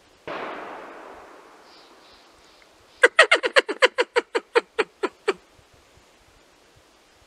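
A single gunshot that dies away over about two seconds, followed by a loud, rapid run of about fifteen short barking calls that slow toward the end.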